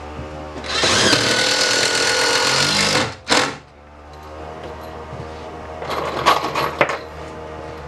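Power driver running hard for about two seconds as it drives a screw through a metal truss stiffener into a wooden floor truss, then a short second burst. A few light knocks follow near the end.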